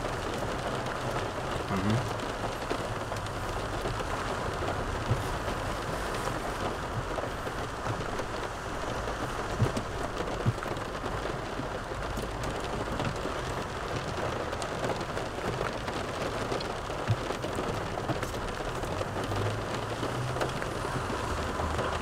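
A steady hiss inside a car cabin, with a few short, sharp clicks of a metal fork against a plastic takeaway container during eating.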